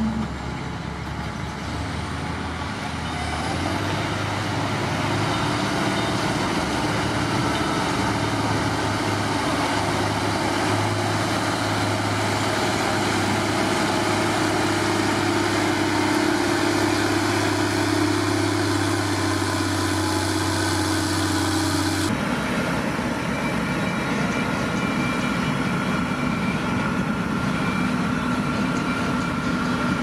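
Heavy diesel engine of a motor grader running steadily, the engine note growing louder a few seconds in. The sound changes abruptly about two-thirds of the way through.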